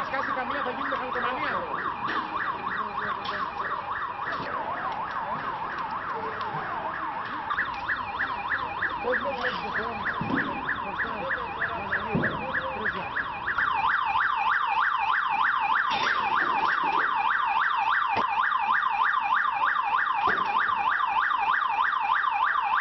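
Electronic siren warbling in a fast rising-and-falling sweep several times a second, without a break. It gets louder about halfway through.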